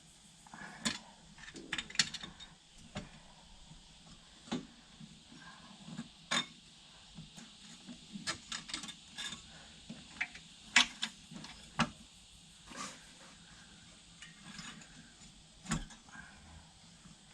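Irregular light clicks and metallic taps from hand work on a car's rear coil-spring suspension, as parts and tools are handled, with sharper knocks about 2 and 11 seconds in.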